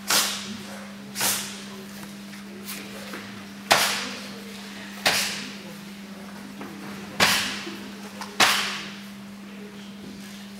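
About six sharp hand strikes slapping against a karateka's tensed body through his cotton gi, unevenly spaced a second or two apart and echoing briefly in the hall. The partner is testing the Sanchin stance in Sanchin kitae conditioning.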